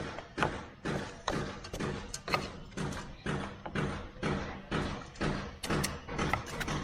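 Background music with a steady beat, about two thumping hits a second over a held low bass line.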